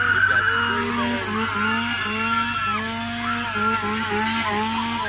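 A chainsaw engine revved hard again and again, its pitch dipping briefly between each burst of throttle.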